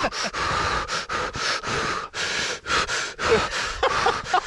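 A man's heavy breathing in a quick run of short puffs, with a few faint pitched notes in it: he is singing a song under his breath as he breathes.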